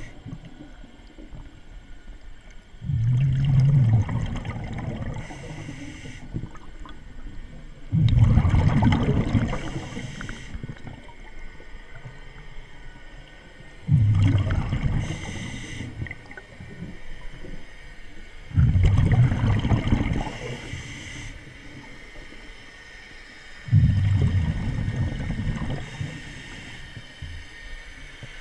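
Scuba diver breathing through a regulator underwater. Five exhalations come as loud rushes of bubbles, roughly one every five seconds, and a fainter hiss of each inhalation falls between them.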